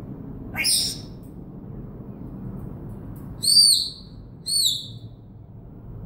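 African grey parrot whistling: a quick rising squeak about half a second in, then two clear high whistled notes about a second apart, each rising then dropping in pitch.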